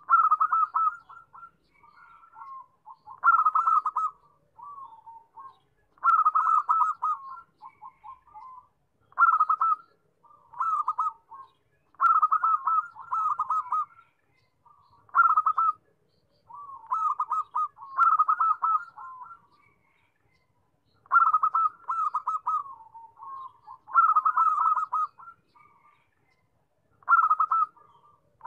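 Zebra dove (perkutut) cooing: phrases of rapid, pulsed coo notes, repeated about every three seconds.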